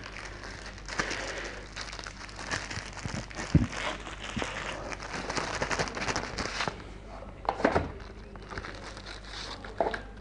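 Plastic zip-lock bags and board-game pieces being handled: crinkling and rustling with small clicks, and two soft knocks about a third and three quarters of the way through.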